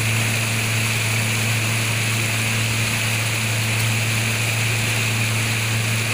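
A small boat's motor running steadily, a low even drone with no change in pitch, over a wash of water and wind noise.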